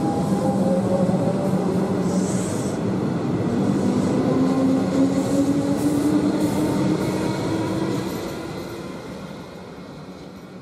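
Comeng electric suburban train pulling away from the platform. Its traction motors whine with slowly rising pitch as it accelerates over the steady running noise of the wheels, with a brief hiss about two seconds in. The sound fades away over the last few seconds as the train leaves.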